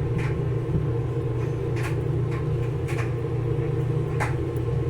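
A steady low mechanical hum in the background, with a few light clicks, three of them clearer than the rest.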